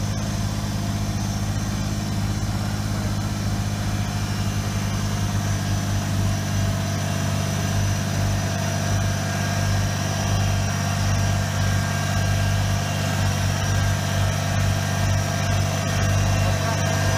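Kubota BX-series compact tractor's three-cylinder diesel engine running at a steady low speed as the tractor drives across grass. It grows slightly louder near the end as the tractor comes up alongside.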